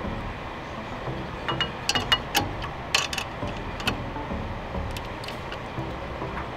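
Metal clinks and ratchet-wrench clicks as a nut is fitted and tightened on a steel horn bracket, with a burst of sharp clicks in the middle and a few more after.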